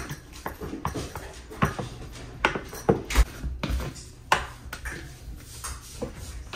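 A glass clamp-lid storage jar and a plastic canister being handled on a kitchen countertop: scattered sharp clinks and knocks, about half a dozen, as the jar is opened and the canister's lid comes off.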